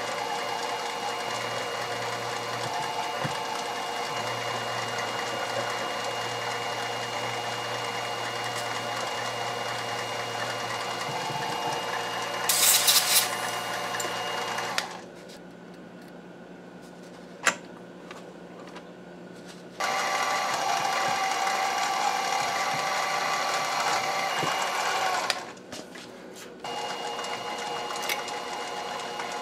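Drill press running steadily as an 8-40 fillister-screw counterbore cuts the screw-head recesses in a Leupold scope base. A short, louder high-pitched cutting screech comes about twelve seconds in. The sound drops quieter for a few seconds in the middle, then the machine runs again.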